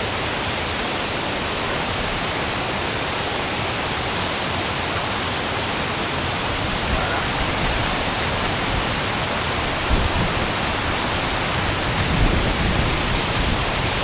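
Waterfall water rushing over a rock slope close by, a steady loud roar of white water. A couple of low thumps come in the second half.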